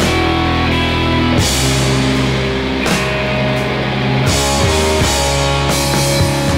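Rock band playing an instrumental passage live: electric guitar and electric bass holding long, drawn-out chords over a drum kit, with cymbal crashes washing in about every second and a half.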